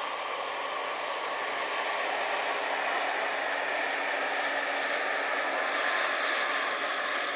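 Steady engine-like running noise: an even hiss with faint steady tones through it, a little louder from about two seconds in.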